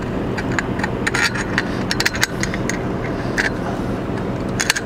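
Light metallic clicks and ticks as long 1/4-inch bolts are fed by hand through the holes of an aluminum pole clamp and bracket, with a quick cluster of clicks near the end, over a steady low background hum.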